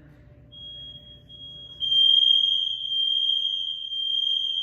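A fire alarm sounding a steady high-pitched tone. It comes in faintly about half a second in and turns loud from about two seconds in.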